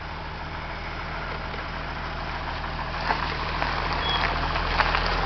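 Jeep engine running low and steady, growing gradually louder as the vehicle comes up close.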